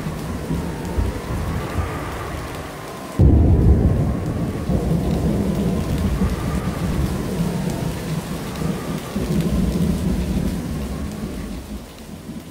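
Thunderstorm sound effect in a music track: steady rain with rolling thunder, and a loud thunderclap breaking in about three seconds in, then rumbling on and fading near the end. A faint wavering tone rises and falls above it.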